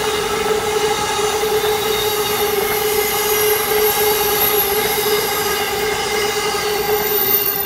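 Amtrak passenger train's coaches passing at speed, with a steady rushing and rolling noise. A steady high tone with overtones is held over it.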